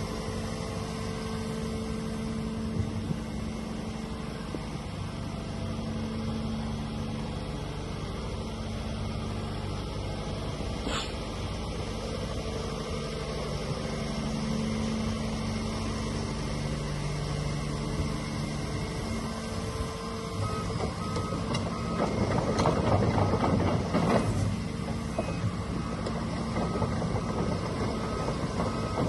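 2022 Volvo EC140EL tracked excavator's diesel engine running steadily, its pitch shifting a little midway. About 22 seconds in it grows louder for a couple of seconds, and near the end a travel alarm starts beeping evenly.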